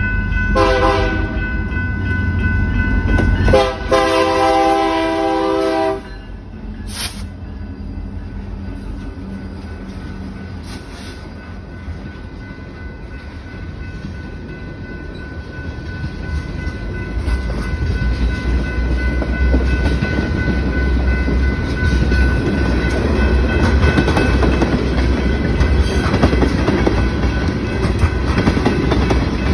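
BNSF diesel freight locomotive sounding its horn: a short blast, then a longer one that stops about six seconds in. After the horn the locomotive's engine rumbles past, and a string of tank cars follows, with the rumble and clatter of wheels on rail growing louder toward the end.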